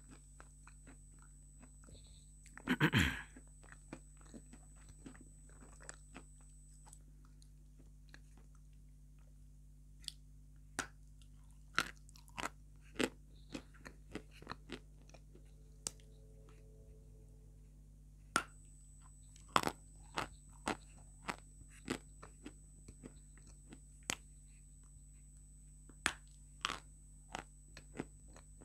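Close-miked eating of dry white chalk-like lumps: one loud crunching bite about three seconds in, then a long run of sharp cracks and clicks as pieces are chewed, thicker in the second half.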